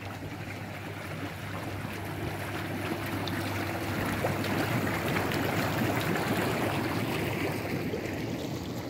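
Hot tub jets running: churning, bubbling water over a steady low hum from the pump. It grows louder to a peak midway, then eases off.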